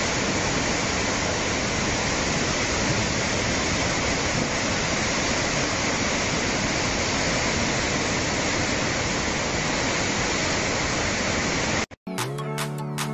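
Muddy floodwater rushing in a fast, churning torrent: a steady, loud rush of water noise. Near the end it cuts off abruptly and music begins.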